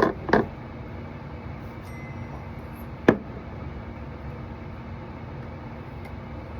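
Lightsaber hilts and blades being handled: a few knocks near the start and one sharp click about three seconds in, over a steady low hum.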